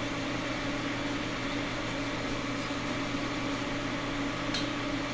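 Steady machine hum with an even hiss, with one sharp click about four and a half seconds in.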